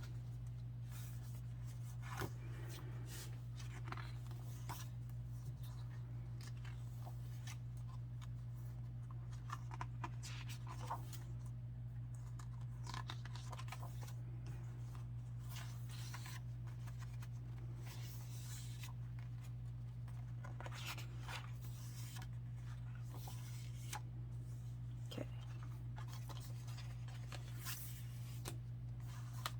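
Paper and card from a K-pop album being handled: scattered faint rustles and small clicks over a steady low hum.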